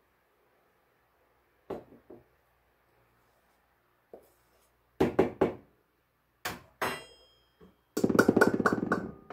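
Knocks and clinks of a plastic measuring cup and butter knife while measuring flour, a few of them with a short metallic ring. Near the end comes about a second of rapid tapping as the cup is knocked against a stainless steel mixing bowl to empty the flour out.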